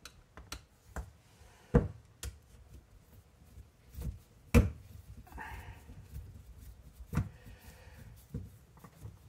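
Irregular clicks and knocks of a screwdriver and small screws being handled and set down during disassembly, three of them sharper and louder, with a short scrape about five and a half seconds in.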